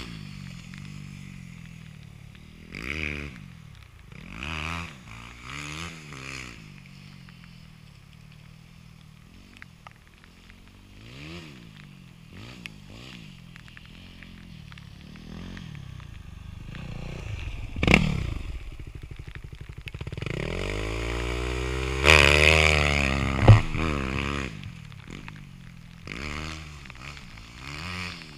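Motocross dirt-bike engines revving up and down through gear changes as the bikes ride around a dirt track. A bike comes close about two-thirds of the way in, the loudest stretch, with its engine pitch sweeping and two sharp knocks. Then it fades into the distance.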